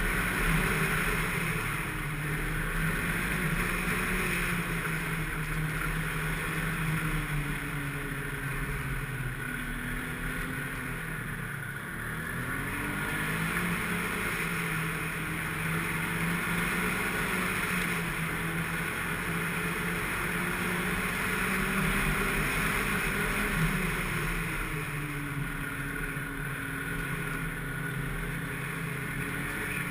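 Snowmobile engine running under way, its pitch slowly rising and falling with the throttle, over a steady hiss.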